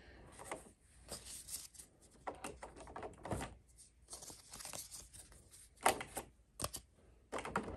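Trading cards handled and flipped one at a time in the hands: soft slides and light snaps of card stock at irregular intervals, with one sharper click about six seconds in.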